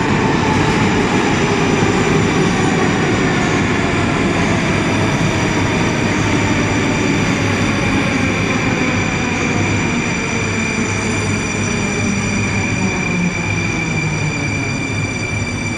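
Moscow metro Rusich (81-740/741) train pulling into the platform and slowing to a stop. Loud rumble of wheels on rail, with a steady high whine and motor tones that slowly fall in pitch as the train brakes.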